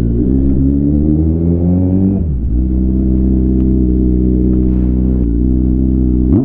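2021 Kawasaki Z900's inline-four engine running through an Akrapovič full-system exhaust, loud as the bike accelerates. The pitch climbs, drops sharply at a gear change about two seconds in, then holds a steady note with a brief dip near the end.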